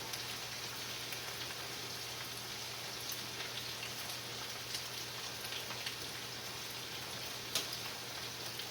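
Fatty ground meat sizzling steadily as it fries in a pan, with scattered small pops and one sharper crackle near the end.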